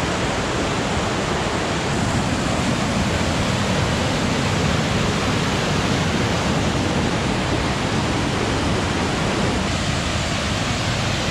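Fast-flowing water rushing steadily, a loud, even noise without breaks.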